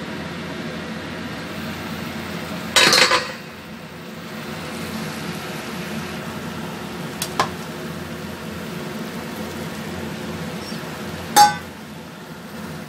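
Zucchini and shrimp frying in a wok with a steady sizzle, broken by loud metal clanks against the pan about three seconds in and again near the end, the second one ringing briefly, with a small click in between.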